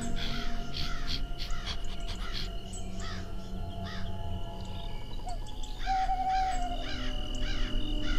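Rapid series of short, harsh animal calls, about three a second, over a steady background music drone.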